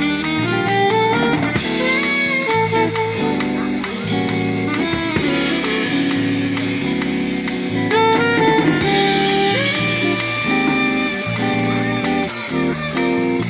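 A live band playing jazzy music: a melody line over bass and a steady beat.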